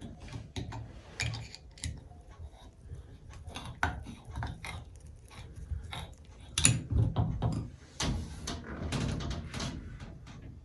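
Irregular clicks, knocks and rattles of hard faucet parts being handled and fitted together, with busier clattering in the second half.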